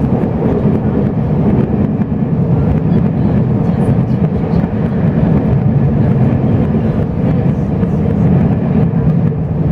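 Steady rumble of a Chu-Kuang express passenger train running along the track, heard from inside the carriage, with faint ticks scattered through it.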